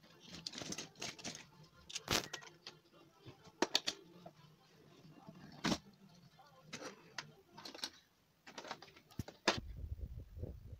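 Die-cast toy cars and hard plastic track parts clicking and clattering against each other in a series of sharp knocks, with a low rumble near the end.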